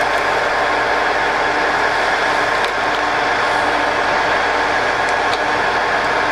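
Colchester Student 1800 geared-head lathe running with its spindle turning, a steady mechanical whine of gears and motor with a few faint clicks. It runs evenly, without knocks or changes in speed.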